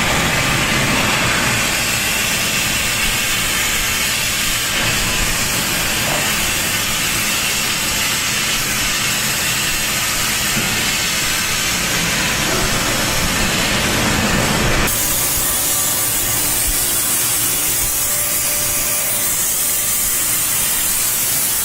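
Dry vapor steam cleaner jet hissing steadily as it blasts the inside of a CNC machine. About fifteen seconds in the hiss turns suddenly higher and thinner.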